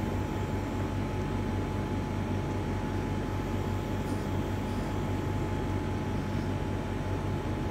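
Steady machine hum with an even whooshing noise and a faint constant high tone, unchanging throughout.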